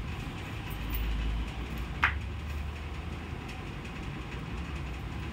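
A steady low rumble, with a single sharp click about two seconds in.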